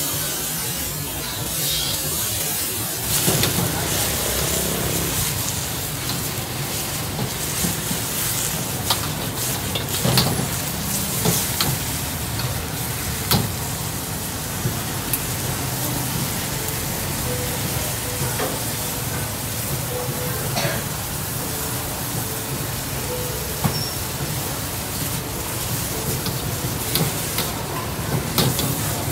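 Morning glory (water spinach) stir-frying in a hot wok: a steady sizzle, with the metal ladle clanking and scraping against the wok now and then as the greens are tossed.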